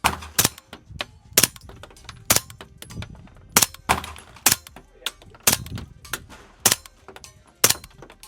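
Suppressed pistol-calibre firearm firing AAC ammunition in slow, steady fire: about nine shots, roughly one a second, with fainter clicks and clinks between them.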